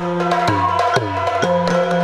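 Yakshagana percussion accompaniment: drums, the chende among them, strike several times a second in a dance rhythm, and some strokes fall in pitch. A steady drone sounds beneath.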